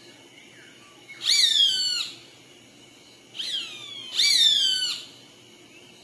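Roadside hawk calling: three drawn-out, nasal screams that fall in pitch, the first about a second in and the other two close together near the middle, the middle one shorter and weaker.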